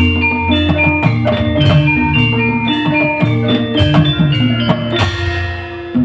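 Live band music with a drum kit, bass and melodic instruments playing a steady beat, loud and close as if heard from the stage.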